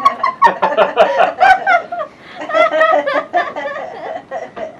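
Laughter in short bursts, with a brief lull a little after two seconds before it picks up again.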